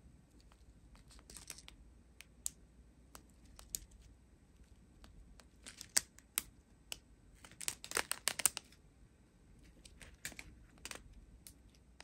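Crinkling of a strip of clear plastic zip bags of square diamond-painting drills as it is handled, in scattered crackles with a denser flurry about eight seconds in.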